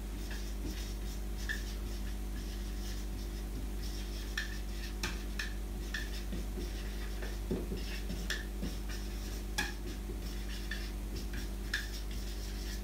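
Dry-erase marker squeaking and scratching on a whiteboard in short, irregular strokes as words are written, over a steady low hum.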